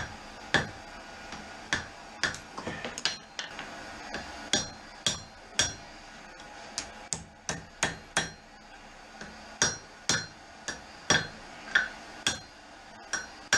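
Hand hammer striking hot steel on an anvil, about twenty irregular blows at roughly one to two a second, each with a short metallic ring, as the knife blade is bent into a curve.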